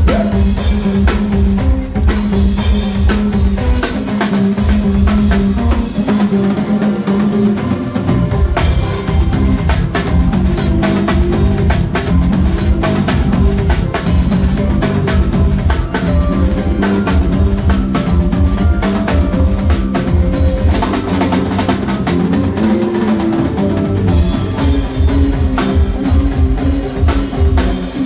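Live band playing an instrumental groove: drum kit with kick and snare driving a steady beat under a bass line. The deep low end drops out for a few seconds about four seconds in, then comes back.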